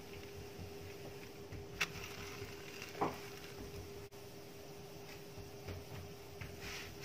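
Tortilla cooking on a cast-iron griddle with a faint sizzle over a steady low hum. A sharp tap comes about two seconds in, and a louder soft thump about three seconds in as the tortilla is flipped and laid back down on the hot iron.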